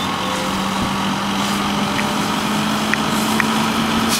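Fire engine's engine running steadily, a low drone that creeps slightly higher in pitch, with a few faint short pops from the burning truck about halfway through.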